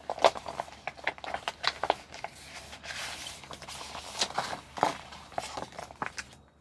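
Crinkling and rustling of a cross-stitch kit's packaging and paper pattern being handled, with irregular sharp clicks and crackles.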